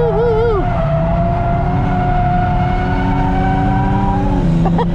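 Toyota JZX100 Mark II's turbocharged straight-six held at steady revs in third gear, foot down, while drifting, with a warbling tire squeal in the first half-second. Near the end the steady note drops away and a quick run of sharp pops follows.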